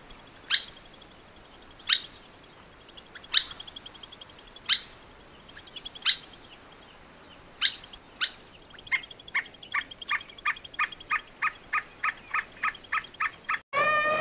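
Sirkeer malkoha calling: sharp single notes about every second and a half, then a quickening run of short clicking notes, over a faint steady high trill. Near the end the recording cuts off and a loud gliding, siren-like tone begins.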